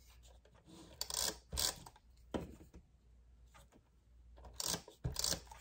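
Hands handling small scrapbooking supplies: a handful of short rustles and light clicks, which fit adhesive foam pieces and paper being picked up and fitted.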